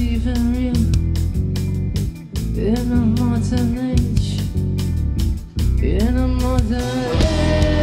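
Rock band playing live: electric guitar, bass guitar and drum kit with steady cymbal strikes, and a sung melody in short gliding phrases.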